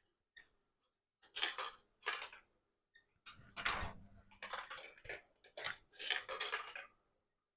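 Plastic marble run lift running on its battery motor, with the balls clicking and rattling against the plastic as they are pushed up the lift and roll out onto the track, in irregular clusters of clatter.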